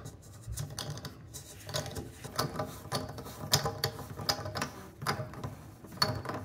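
Metal drain removal tool clicking and scraping in a new chrome bathtub drain flange as it is turned by hand, screwing the drain into the tub: irregular sharp clicks, about three a second.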